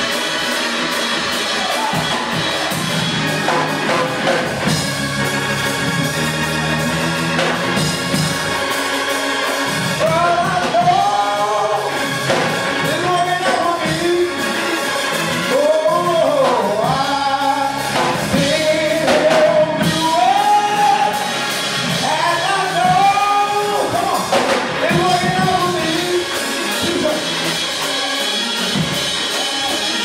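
Gospel church music on keyboard and drums. From about ten seconds in, a man's voice sings into a microphone over it in long, bending held notes.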